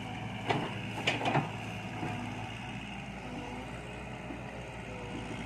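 Excavator's diesel engine running steadily, with a few short knocks or clanks about half a second to a second and a half in.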